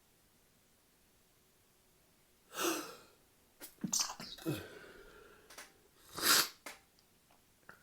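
A person's sneezing fit: a loud sneeze about two and a half seconds in, then short sharp breaths and smaller sneezing sounds, and another loud sneeze about six seconds in. The sneezer puts such fits down to drinking alcohol.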